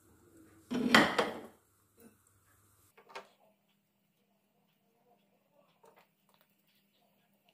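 Breaded fish cutlets being laid into hot coconut oil in a nonstick kadai. There is a short loud burst of sizzle and pan clatter about a second in and a shorter one at about three seconds, then only faint small ticks.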